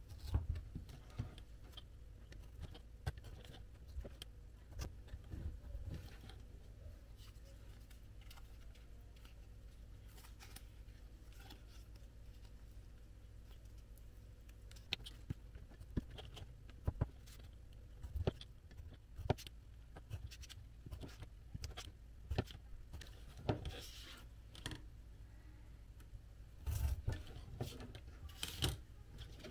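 Irregular light clicks and taps of cardboard pieces being handled and worked by hand, with a denser cluster of taps near the end, over a low steady hum.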